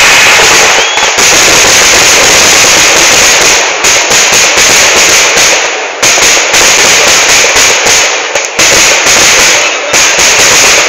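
Temple-festival fireworks (vedikkettu): a dense, unbroken barrage of firecracker explosions, so loud that the recording is overdriven, with a few brief dips in the din.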